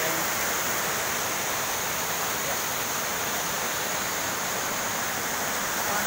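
Small waterfall's falling water, a steady, even rushing noise with no breaks.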